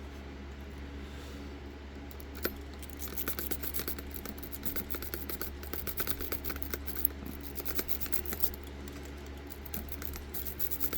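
Half-diamond lock pick zipped rapidly in and out of a puck lock's keyway, raking the pin tumblers with a fast run of fine metallic clicks and scrapes. The raking follows a single sharp click about two and a half seconds in.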